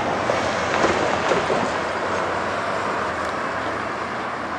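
Steady rush of road traffic: cars passing on a wide street.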